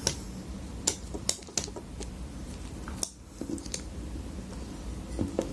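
Irregular light clicks and taps of a baitcasting reel being handled during cleaning, several small sharp ticks spread unevenly across a few seconds.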